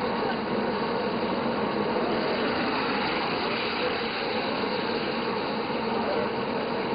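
Steady sizzle of fish deep-frying in a large karahi of bubbling oil, with a steady low hum underneath.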